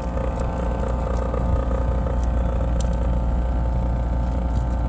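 Tempstar rooftop air conditioner's compressor running with a steady hum, a rattle and a few irregular ticks. The technician suspects a bad compressor.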